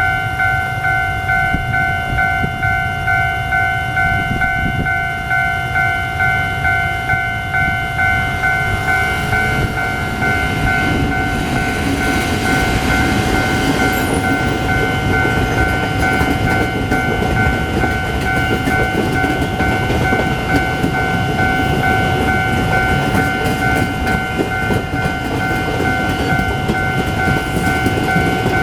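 Level-crossing warning signal sounding a steady two-tone alarm while a Taiwan Railways Chu-Kuang Express train runs through the crossing with a continuous loud rumble that grows fuller about a third of the way in.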